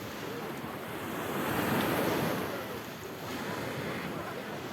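Sea surf washing in, swelling to its loudest about two seconds in and then falling back.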